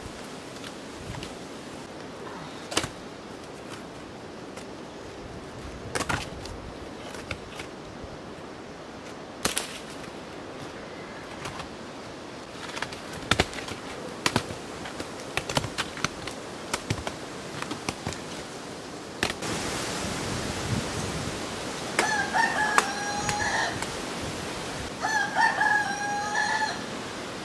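Loose volcanic stones clacking and scraping against each other as they are lifted and set down, with several sharp knocks. Near the end a rooster crows twice, each crow about a second and a half long.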